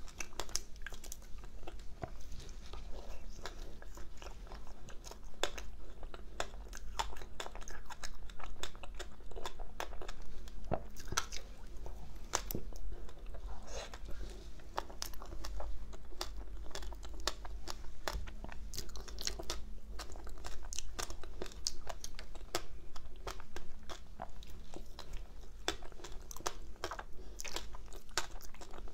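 Close-up crunching and chewing of ice dusted with matcha powder: dense, crisp, irregular crackles as the ice is bitten and broken up in the mouth.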